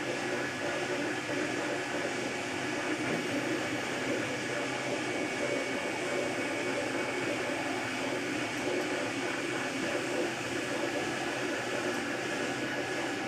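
MakerBot Replicator 2 3D printer running mid-print: its stepper motors drive the extruder head back and forth with a fluttering buzz, over a constant whine and hiss from the extruder's cooling fan.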